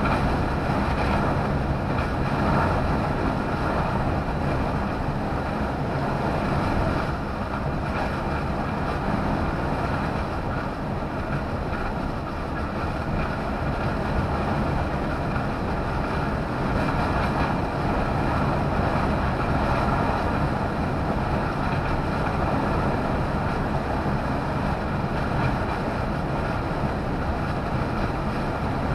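Steady engine drone with tyre and wind noise inside a lorry cab cruising at motorway speed.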